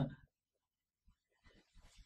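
Mostly near silence, with a few faint, short clicks in the second half from jumper wires and connectors being handled and pushed into place.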